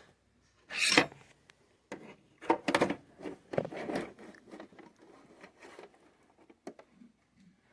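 Hands working cables and a green hook-and-loop (Velcro) tie: a few short scratchy tearing and rustling noises, the loudest about a second in, with small clicks and scrapes between them.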